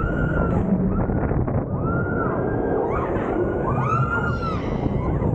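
Roller coaster train running at speed, with a loud rush of wind on the microphone and track rumble. Over it riders let out three high screams, each rising and falling: near the start, about two seconds in, and about four seconds in.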